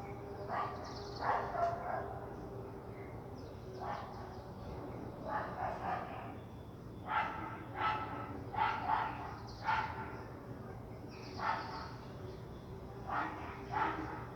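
A dog barking in short runs of a few barks every second or two.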